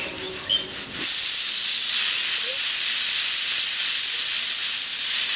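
Pressure cooker whistle blowing: steam rushing out past the weight valve in a loud, steady hiss that starts softly and jumps to full force about a second in. It is the cooker's first whistle, the sign that it has come up to pressure and the rice is cooked.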